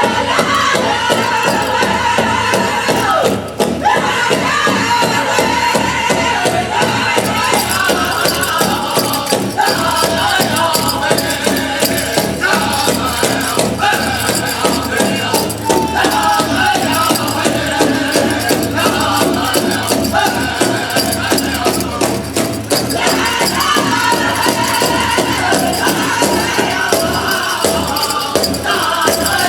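Upbeat song with singing over a steady beat with shaker-like percussion.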